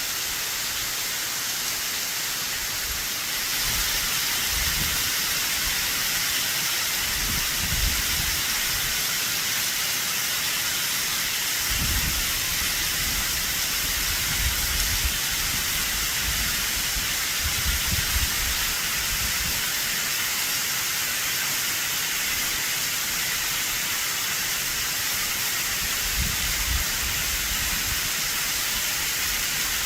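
Waterfall cascading off a cliff at high spring run-off: a steady rushing hiss of falling water and spray, with low rumbles coming and going. It grows slightly louder about three and a half seconds in.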